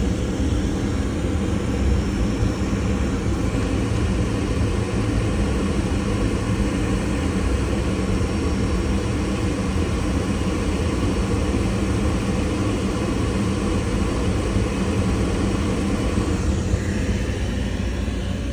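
Rinnai tankless water heater firing with one hot-water faucet open: a steady rushing drone from its combustion fan and burner, with water flowing.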